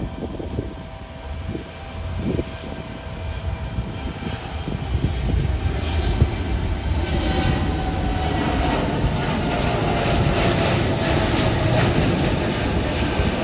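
Boeing 787-8 airliner's turbofan engines at takeoff power, a roar that grows louder from about four seconds in as the jet accelerates down the runway and rotates for liftoff near the end.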